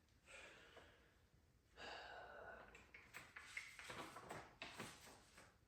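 Faint handling noise from a DeWalt DWX724 miter saw stand as its side extension arms are pulled out: a soft scrape about two seconds in, then several light clicks.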